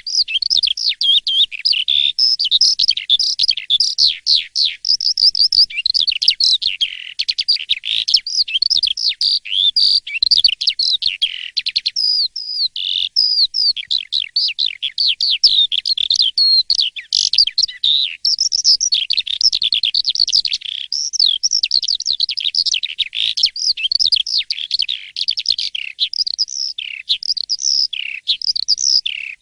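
Asian pied starling (jalak suren) in full, constant song: a fast, nearly unbroken stream of chirps, whistles and quick rising and falling notes.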